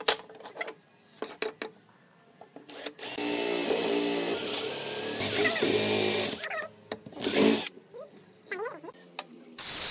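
Cordless drill boring a hole into a pine block. It runs steadily for about three seconds, then gives a short second burst. Before it starts there are light knocks and clicks of wood pieces handled on the bench.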